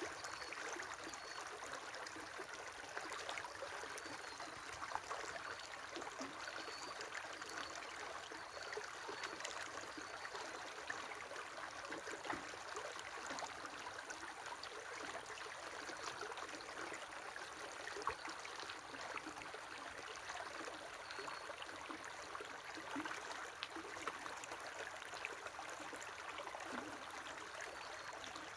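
River water flowing steadily, an even rush with many small splashes and trickles.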